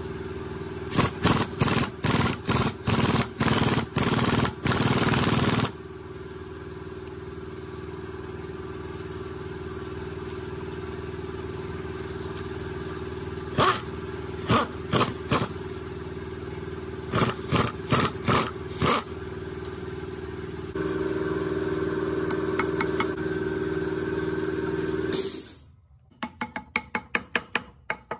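Impact wrench with a long socket extension driving flange bolts on a gearbox's universal joint, hammering in trigger bursts: a long run of short bursts about a second in, then two shorter runs in the middle, over a steady mechanical hum. The hum cuts off near the end, and a quick series of sharp taps from a hammer struck through a cloth follows.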